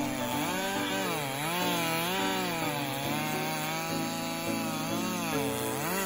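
Chainsaw engine running steadily under load while cutting wood, its pitch rising and falling about once a second as the engine speed changes.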